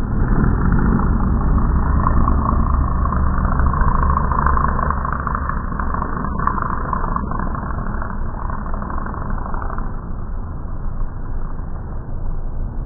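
Race car engines running at a distance across the circuit, a continuous rumble that is louder for about ten seconds and then eases off.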